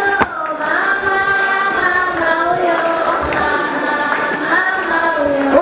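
Voices singing a slow song with long held notes that slide from one pitch to the next.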